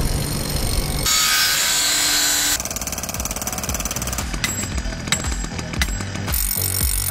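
Construction sounds cut together in quick succession: a power tool runs loudly for about a second and a half, then scattered clinks and metal knocks, ending with heavy strikes as a steel stake is driven into gravel.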